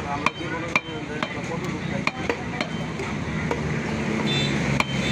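Large curved butcher's knife cutting beef on a wooden log chopping block: a run of sharp, irregularly spaced knocks as the blade strikes the wood.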